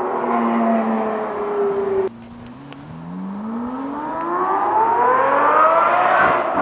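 Lamborghini Murciélago LP640's V12 through a Fi valved catless exhaust, at first held high in revs with a note that sags slightly, then cut off abruptly about two seconds in. After a moment the engine note rises steadily in pitch and grows louder as the car accelerates hard and approaches.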